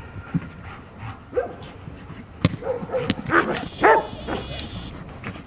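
German Shepherd barking and yelping in bite work as it charges and grips the helper's bite pillow, with a few sharp cracks from the helper's whip a little past the middle.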